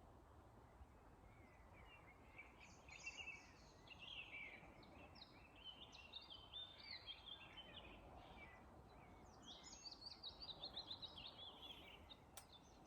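Faint birdsong from a small songbird: varied short chirps and warbles, with a quicker run of notes near the end, over a low steady background hiss.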